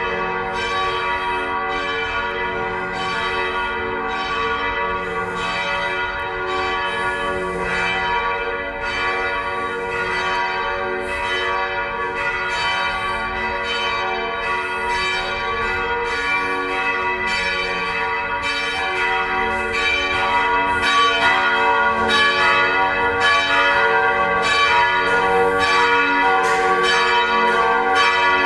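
Church bells of the Felsenkirche ringing loudly: several bells striking again and again, their strokes overlapping. The ringing gets louder about twenty seconds in.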